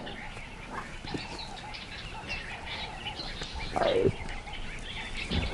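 Leopard cub calling: a short mew falling in pitch about four seconds in, with fainter brief calls earlier.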